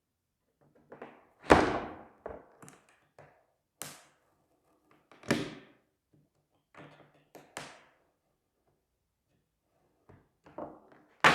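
Plastic cable trunking being handled while a utility knife cuts its adhesive backing tape: scattered thunks and taps with short gaps between them, the loudest about a second and a half in. Music starts at the very end.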